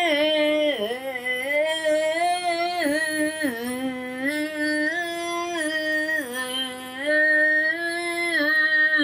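A single voice singing wordless, drawn-out tones, holding each note for a second or two and sliding down and back up between them.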